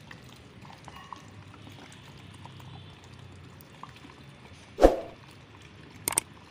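Water poured from a plastic can onto the soil of a potted rose, a faint trickle and splash. Near the end comes a sudden loud swoosh, then a quick pair of clicks, from a subscribe-button sound effect.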